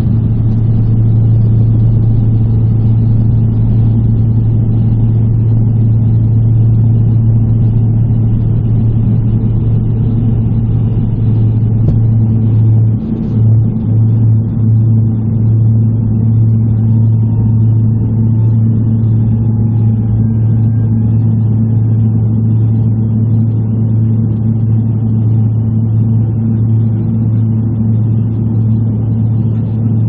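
Beechcraft 1900D's twin Pratt & Whitney Canada PT6A-67D turboprops at takeoff power, heard from inside the cabin beside the engine: a loud, steady low propeller drone through the takeoff roll and climb-out. The drone wavers briefly about 13 seconds in.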